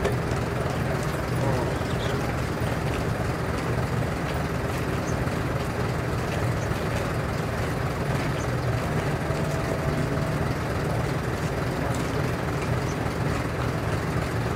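Truck diesel engine idling steadily, a constant low hum.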